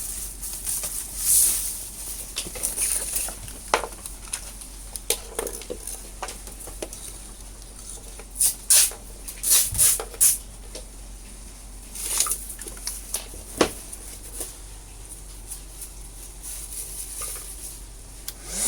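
Scattered clicks, taps and light rustling from a small portable 12-volt car vacuum cleaner being handled and set up. Near the end its motor switches on and starts to whine up in pitch.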